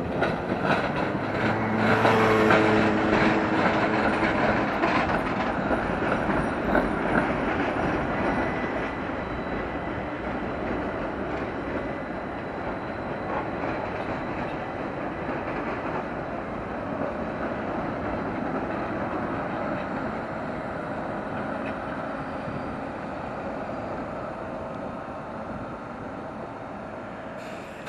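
Trams passing on street track: steel wheels clicking over rail joints in the first few seconds, with a steady motor hum as the nearest tram goes by. A rumble of wheels on rail follows and slowly fades as further trams pass.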